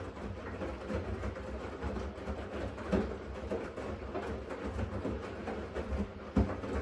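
Siemens front-loading washing machine tumbling a cotton wash: a steady low motor rumble with irregular knocks and thuds of the wet laundry falling in the drum, one sharper thump near the end.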